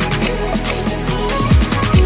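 Electronic background music with a steady beat and deep kick drums that fall in pitch.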